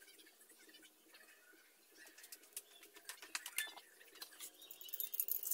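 Hot oil sizzling and crackling around a squash fritter frying in a wok, with sharp pops that grow denser from about two seconds in.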